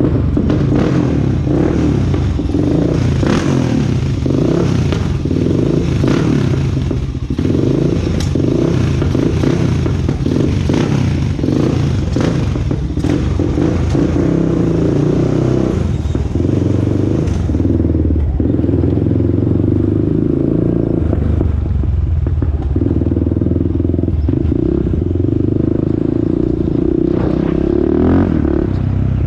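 2001 Honda TRX400EX ATV's single-cylinder four-stroke engine running on a ride, its pitch rising and falling as the throttle changes, with short clattering strokes over it. No ticking is heard from the engine after the fix.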